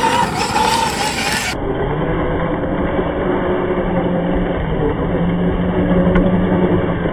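Traxxas UDR RC truck's electric motor and drivetrain running, with a rising whine. About a second and a half in, the sound abruptly loses its top end and turns into a low, steady drone: the run slowed down for slow-motion playback.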